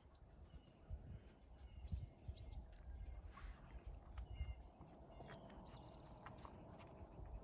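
Faint outdoor ambience: a steady high insect drone with a few short, faint bird chirps and occasional low thumps.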